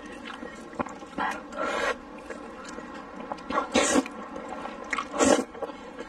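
A person slurping spicy noodles with chopsticks: three loud slurps, the first about a second in and the longest, with soft chewing clicks between.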